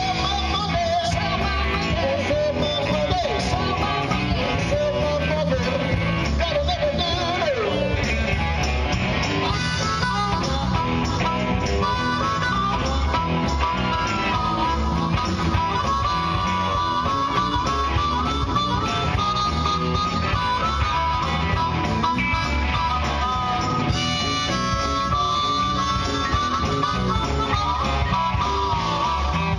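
Live blues band playing: drums, bass and electric guitar keep a steady beat under a harmonica lead line that bends its notes early on and holds higher, wavering notes from about ten seconds in.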